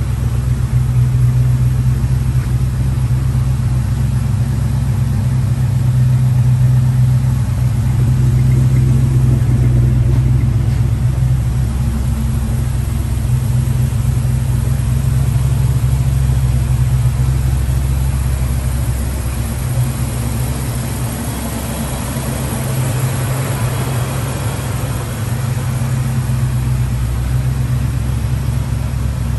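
The 1975 International Scout's 350 V8 engine idling steadily through its exhaust.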